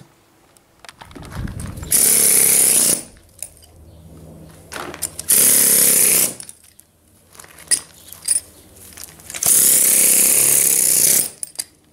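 Compressed-air tool on an air hose running in three loud bursts of one to two seconds each, digging weeds out of the gravel along a concrete edge.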